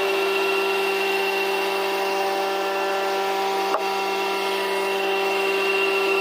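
Electric woodworking power tool running steadily with an even, unchanging hum and a light click about halfway through.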